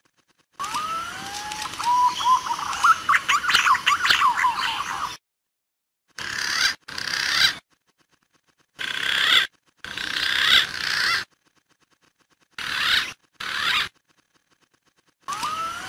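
Green pigeons (punai) calling, as played for luring: a whistled song of rising, wavering notes over quick chirping strokes for about four seconds, then several short rasping bursts, each ending abruptly in silence.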